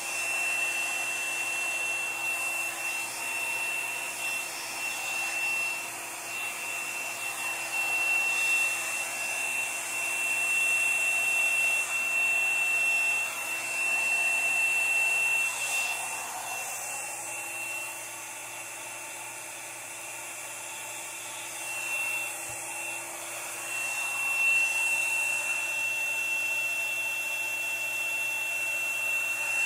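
Small hair dryer running steadily with a high whine, blowing wet acrylic pour paint across a canvas. A little past the middle it drops quieter and loses its whine for a few seconds, then comes back at full strength.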